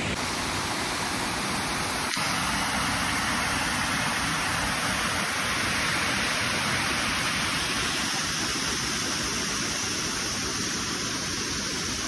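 Steady rush of water from a rainforest creek cascade, an even hiss with no breaks.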